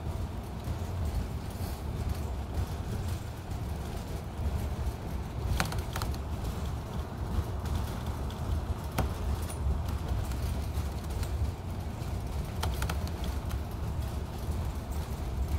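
Steady low road and engine rumble heard from inside a moving vehicle, with a few light clicks or knocks.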